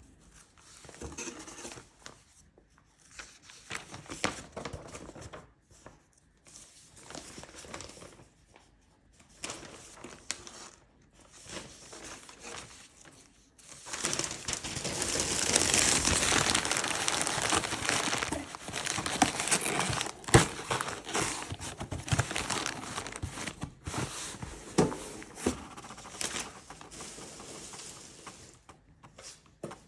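Packing material being crumpled and handled, in short rustling bursts at first, then about ten seconds of continuous louder crinkling and tearing, with a few sharp knocks.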